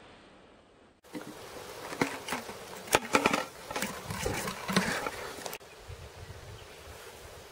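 Handling noise from a cardboard Pringles chip tube being loaded as a drain-cleaner and aluminium-foil bomb: a run of sharp clicks and knocks over a few seconds. It stops abruptly and a faint steady forest hush follows.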